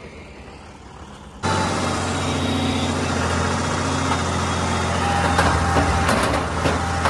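Tractor engine running steadily while pulling a Schulte Giant rock picker, the picker's tined reel turning through the soil. The engine comes in suddenly about a second and a half in after a quieter stretch, and a few sharp knocks near the end are rocks clattering in the picker.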